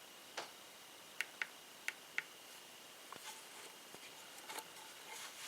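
Several faint, sharp clicks and small taps, two of them in quick pairs about a second in and two seconds in, then a few fainter ticks: handling of a small plastic object.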